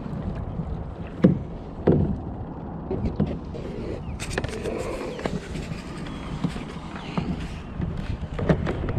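Steady wind and water noise around a plastic fishing kayak, broken by several sharp knocks on the boat, the loudest a little over a second and about two seconds in.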